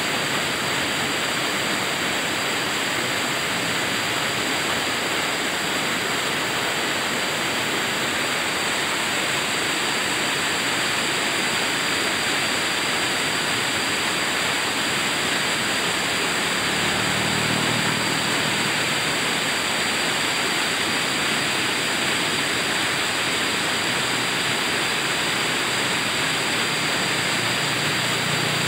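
A shallow rocky river rushing in rapids over boulders: a steady, unbroken white-water rush.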